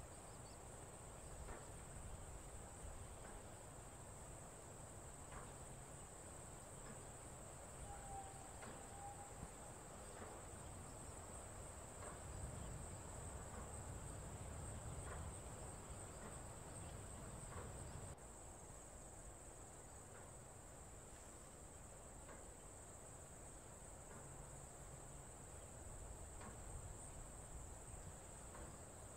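A steady, high, even insect drone from crickets or similar insects, with a low rumble underneath and a brief whistle about eight seconds in.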